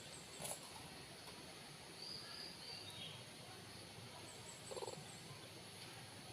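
Caged bird calling faintly: a few short high chirps, a click about half a second in, and a quick rattling run of lower notes near the end.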